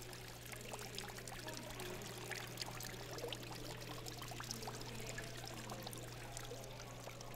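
Thin stream of water running from a wall-mounted mixer tap into a sink, a steady splashing trickle with small irregular drips, over a low steady hum.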